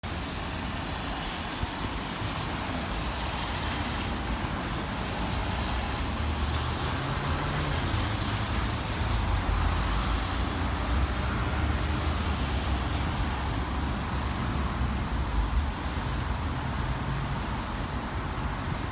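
Strong typhoon wind rushing steadily, with gusts rumbling hard on the microphone.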